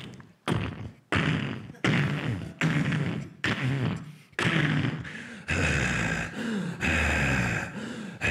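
Vocal sound effects made with the mouth into a handheld microphone: a quick string of sharp bursts with short downward-gliding pitched sounds, then, from about halfway, longer hissing blasts with a low rumble.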